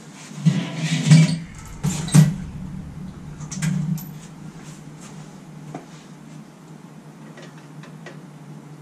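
Clatter and knocks of hand tools being handled and gathered, in several bursts over the first four seconds, then only a few faint clicks over a steady low hum.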